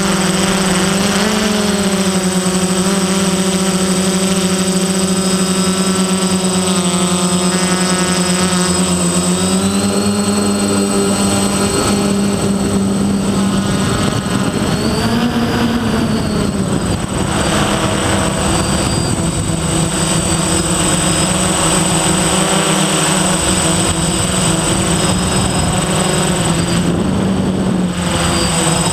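DJI F450 quadcopter's four electric motors and propellers whining steadily in flight, the pitch rising and falling now and then as the throttle changes.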